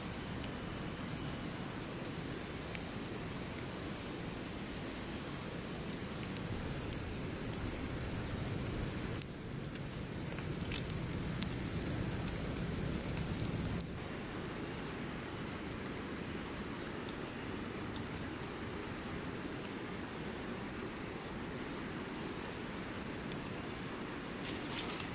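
Wood campfire crackling with scattered sharp pops, over a steady high-pitched insect drone and a low, even rushing background.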